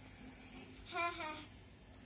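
A woman's voice making one short hummed, sung-sounding note about a second in, over faint room hum.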